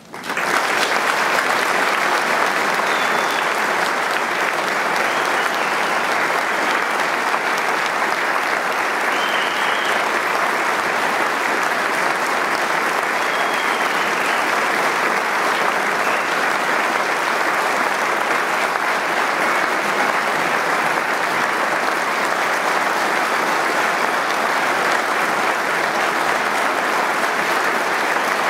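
Audience applauding, breaking out suddenly at the close of a choral piece and holding steady throughout.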